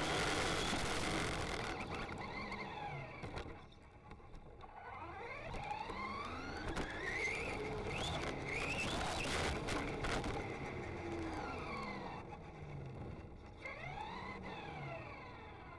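Traxxas Rustler RC truck's Castle Creations 7700kv brushless motor whining, rising and falling in pitch several times as the truck speeds up and slows. A loud rush of wind and tyre noise fills the first couple of seconds.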